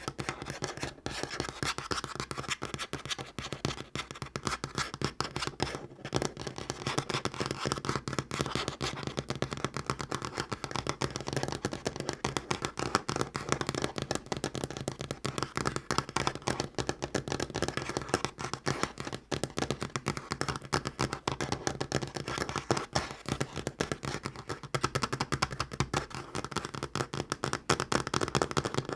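Natural fingernails tapping fast on a tabletop: a dense, unbroken flurry of sharp clicks.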